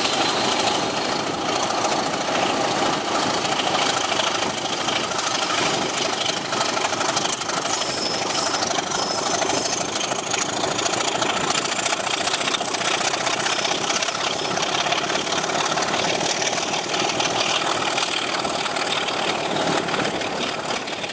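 Class 25 diesel locomotive's Sulzer six-cylinder engine running as it hauls the train, heard from an open window of the carriage just behind it, mixed with wheel and track noise. A faint high whine rises slowly in pitch throughout.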